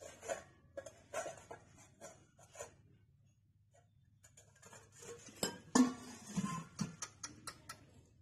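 Stainless steel plates and bowls clinking and knocking as they are handled and set down, with a spoon clinking in a steel bowl. The clinks are scattered at first, then come thicker and louder in the second half.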